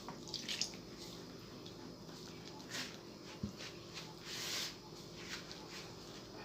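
Faint sounds of dough being mixed by hand in a bowl as milk is poured in: soft scattered swishes and rustles, with a light knock about three and a half seconds in.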